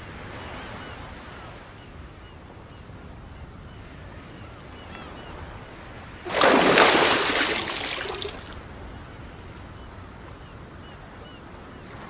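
Sea water washing on a beach with a steady hiss and faint bird chirps. About six seconds in comes a loud rush of water that starts suddenly and fades over about two seconds.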